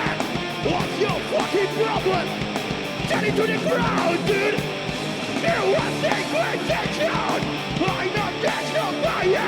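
Rock band playing live: loud, heavy punk-style music with shouted vocals.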